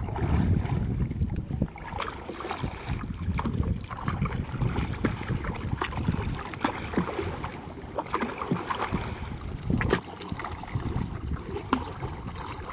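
Canoe being paddled across calm water: paddle strokes with splashes, drips and small knocks scattered throughout. A low wind rumble on the microphone fills the first couple of seconds.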